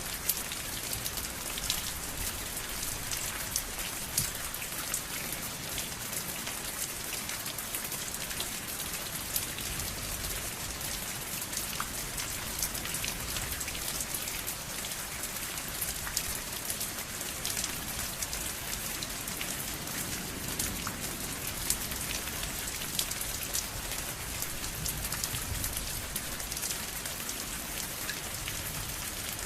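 Steady rain falling, a dense hiss with many sharp individual drops ticking and pattering on a surface.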